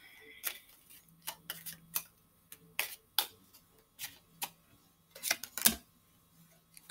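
Tarot cards being handled and shuffled: a string of irregular, sharp clicks and taps, the loudest near the end.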